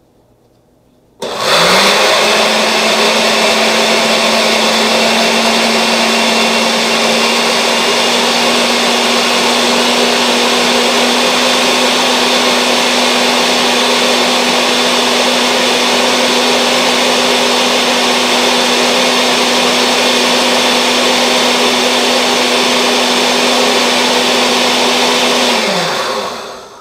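Oster glass-jar countertop blender grinding dried chiles de árbol and garlic in oil into salsa macha. It switches on about a second in, its motor whine rising and then holding steady under a loud, even churning, and it winds down with a falling whine just before the end.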